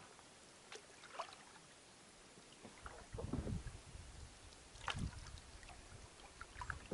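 Canoe paddle strokes in calm water: a couple of light clicks, then from about three seconds in a low swish of the blade pulling through the water about every two seconds, three in all, with small drips and splashes between them.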